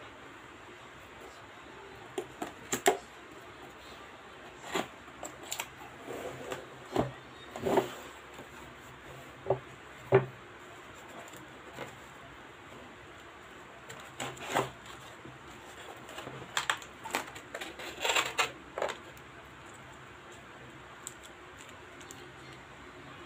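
A cardboard laptop box being opened and unpacked by hand: scattered taps, knocks and scrapes of the cardboard lid, flaps and foam inserts, with a denser patch of plastic-bag crinkling later on.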